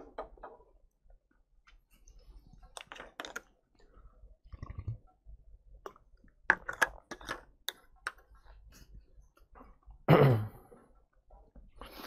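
A man drinking from a plastic water bottle: scattered handling clicks and mouth and swallowing sounds. About ten seconds in there is one short burst of voice, the loudest sound here.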